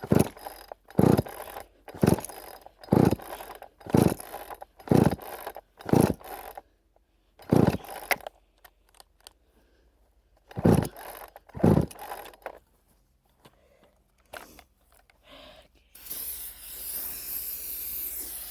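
Chainsaw recoil starter pulled about ten times, roughly one pull a second with a pause partway through. The engine does not catch: this saw has no primer and may be out of fuel. Near the end comes a steady hiss of aerosol brake cleaner being sprayed.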